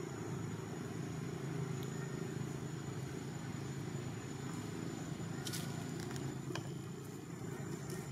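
Steady low background rumble with a faint, thin high tone above it, and a few light clicks about five and a half seconds in.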